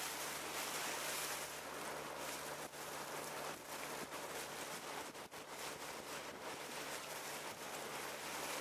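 Steady rush of water and wind from a moving boat, with a low, even engine hum beneath.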